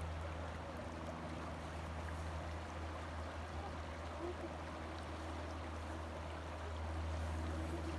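Steady rush of flowing river water, with a constant low hum underneath.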